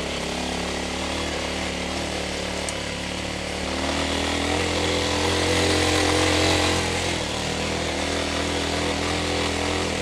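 TDR 300 dirt bike engine running steadily while riding along a dirt track. It grows louder and a little higher from about four seconds in, as the throttle is opened, then eases back a few seconds later.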